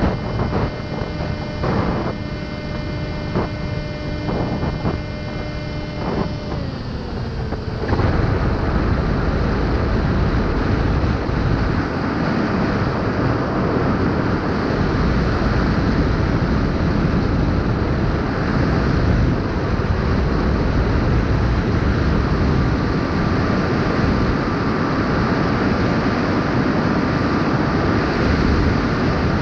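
FPV racing quadcopter's brushless motors and propellers whining at a steady pitch that slides down about seven seconds in. After that, loud wind noise on the onboard camera's microphone covers the motors, leaving only a faint steady motor tone beneath it.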